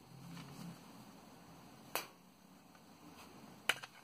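Sharp plastic clicks from the battery cover of a digital thermometer-hygrometer being pushed and slid open by hand: one about two seconds in and a quick double click near the end, with soft handling noise between.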